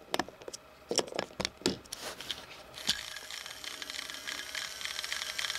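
Plastic clicks and knocks as batteries are fitted into a Trackmaster Nia toy train engine. About three seconds in, its small battery motor and gears start whirring steadily with a fine rapid ticking, the wheels spinning freely off the track.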